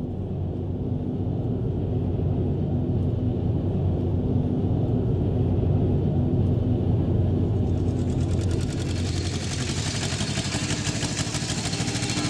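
A motor vehicle's engine running steadily with a low hum. About eight seconds in, a loud, high, rapidly clattering hiss joins it.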